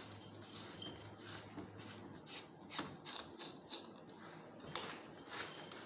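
Screws being driven into a cylindrical door lock with a screwdriver: a run of small irregular metal clicks and ticks, a few of them louder.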